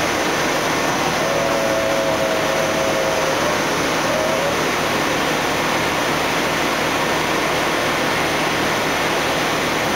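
60-inch Campbell vertical CNC grinder running, coolant spraying over the wheel head and workpiece: a steady, even hiss.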